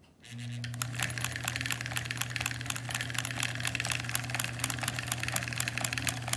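Singer 306K sewing machine running and stitching a zigzag, starting about a third of a second in: a steady electric motor hum with rapid clicking throughout. The owner puts the clicking down to the motor, which is why the machine is sold for repair.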